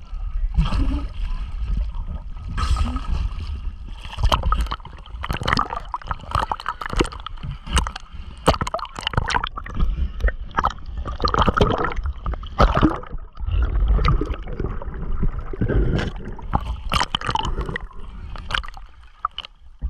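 Seawater splashing, sloshing and gurgling around a camera bobbing at the surface in small waves, in many short irregular splashes over a constant low rumble of water buffeting the microphone.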